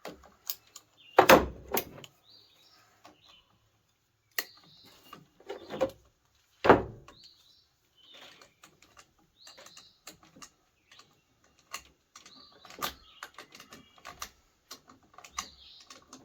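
Hand tools clicking and knocking on the string trimmer's metal fittings as a nut is tightened, in scattered strokes with two louder knocks, one about a second in and one near the middle.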